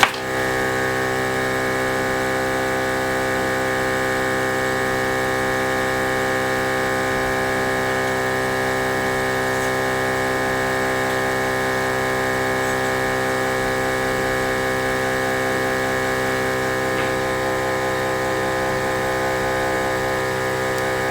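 OM518 Plus LCD repair machine running with a steady, unchanging hum made of many layered tones.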